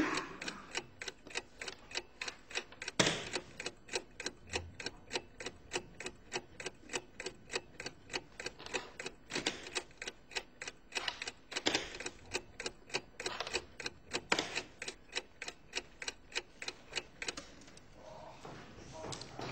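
Mechanical clock ticking steadily, about three to four ticks a second, with a louder knock every few seconds; the ticking stops near the end.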